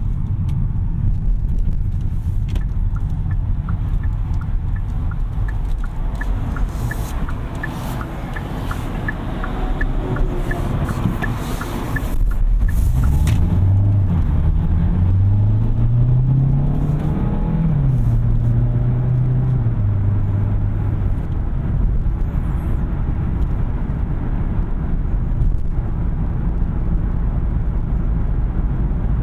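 Road and tyre rumble in a 2021 Kia K5 hybrid on the move, with a light regular ticking of the turn signal for about ten seconds. About halfway through, the petrol engine comes in louder and climbs in pitch in steps as the car accelerates through its gears, then settles to a steady note.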